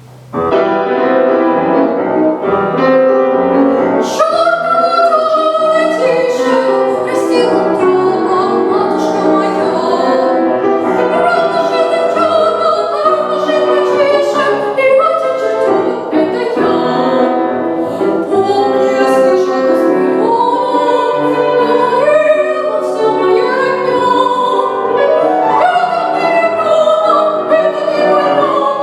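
Young female singer performing an operetta song in a classical style with vibrato, accompanied by piano. A short piano introduction opens, and the voice comes in about four seconds in.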